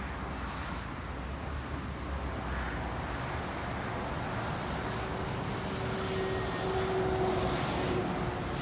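Road traffic passing, with a box truck driving by; a steady engine hum comes in partway through and the sound swells a little near the end as the truck goes past.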